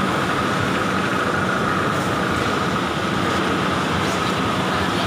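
Steady machinery drone in a factory, with a constant high whine and no distinct impact.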